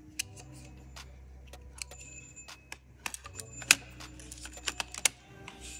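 Irregular small clicks and taps of plastic and metal parts as a laptop cooling fan is handled and fitted back into the chassis, the loudest a little past halfway. A steady faint low hum runs underneath.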